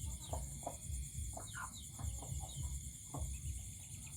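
Chickens making soft, scattered clucks and short calls, some of them gliding down in pitch.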